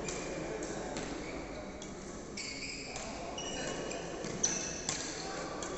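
Badminton play on an indoor court: court shoes squeaking on the sports floor several times, then a couple of sharp racket hits on the shuttlecock near the end, over echoing background chatter in the hall.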